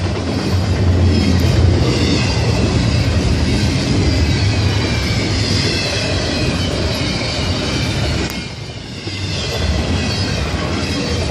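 Canadian Pacific double-stack container train passing at speed: a steady rumble and clatter of the container well cars' wheels on the rails, with a brief dip in loudness about eight seconds in.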